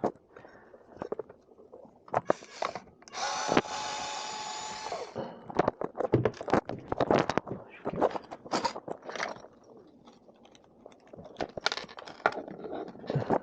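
Small electric screwdriver running for about two seconds, a steady whine, backing out a screw to remove the RC truck's cover. Around it, clicks and light knocks of plastic parts and screws being handled.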